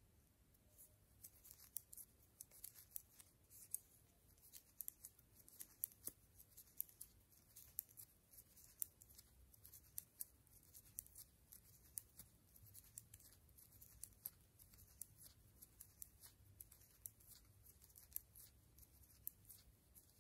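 Faint, light clicking of metal knitting needles touching as stitches are purled, several quick clicks a second at an uneven pace.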